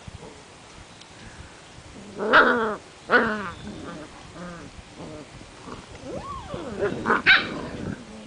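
Seven-week-old Portuguese Water Dog puppies play-fighting, with two loud yelping barks about two and three seconds in, then a run of quieter growls and yips that grows louder again near the end.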